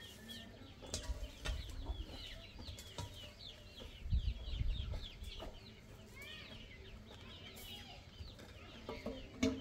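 A flock of chickens clucking, with a dense run of high, short peeping chirps throughout. Scattered scrapes and knocks of a shovel in dry dirt, with a low rumble about a second in and a louder one around four seconds in.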